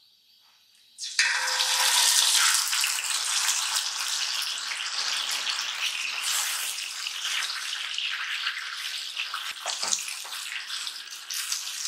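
Milk-soaked semolina tipped into hot caramelized sugar and ghee, setting off a loud hissing sizzle that starts suddenly about a second in and keeps going as it is stirred with a spatula.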